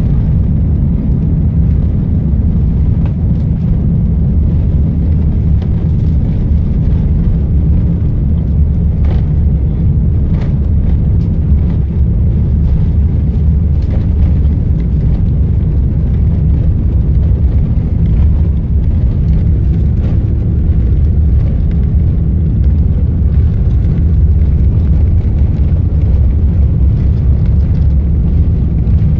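Airbus A380 cabin noise while taxiing, heard from inside the upper-deck cabin: the steady low rumble of the Rolls-Royce Trent 900 engines at taxi power and the airliner rolling along the taxiway. A couple of faint clicks occur near the middle.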